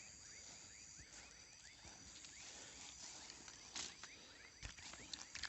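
Faint dusk chorus of crickets and other insects: a steady high trill under a stream of short repeated chirps, a few a second, with a couple of faint knocks in the second half.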